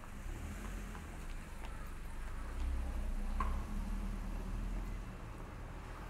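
Low rumble of a diesel box truck's engine moving off at a level crossing, growing louder and at its loudest about three seconds in, with a brief light tick partway through.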